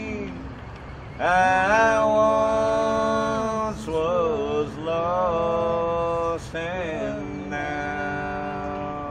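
Bagpipes playing a slow tune: long held chanter notes over a steady drone, broken twice by quick grace-note ornaments.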